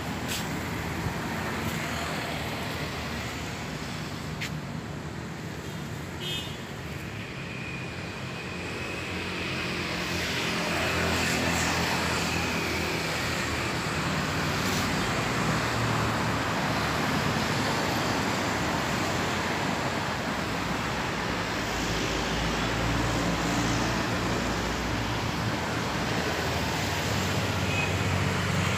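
Street traffic: vehicles passing on the road, a steady rumble and tyre noise that grows louder about ten seconds in and stays so.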